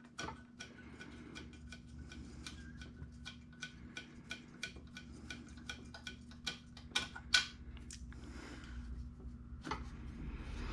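Ratchet wrench clicking in a run of light, quick ticks, about three a second, as bolts are worked loose on a Honda GX190 engine's valve cover, over a faint steady hum.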